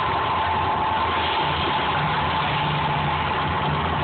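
Steady, loud rumble and roar of the Mirage volcano show's eruption effects, with a low hum joining about one and a half seconds in.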